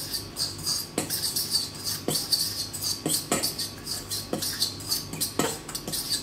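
A fork stirring a dry mix of flour and breadcrumbs in a stainless steel bowl: a quick, steady scratchy swishing, with the tines clinking against the bowl about once a second.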